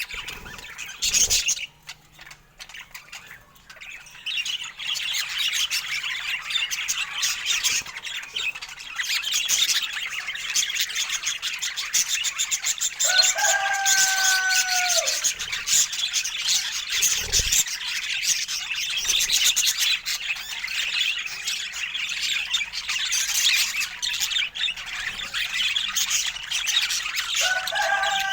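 Budgerigars chattering and warbling in a rapid, continuous stream of high chirps, with a brief lull about two seconds in. Twice a longer call falls in pitch, once about halfway through and once near the end.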